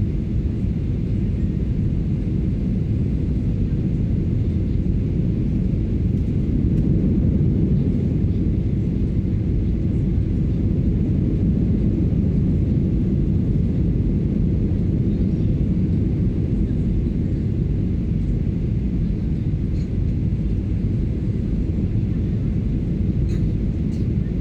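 Cabin noise inside a Boeing 737-800 on approach: a steady low rumble of engines and airflow heard through the fuselage, holding even throughout.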